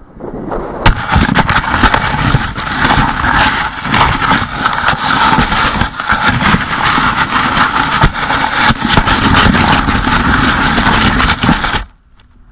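Stratospheric balloon gondola hitting the ground with a sharp knock about a second in, then a loud, rough scraping and rattling full of sharp knocks as it is dragged across ploughed soil; the noise stops suddenly near the end as the gondola comes to rest.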